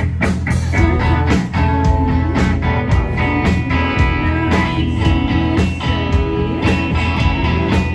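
Rock band playing live through a club PA: loud electric guitars over bass and a drum kit keeping a steady beat.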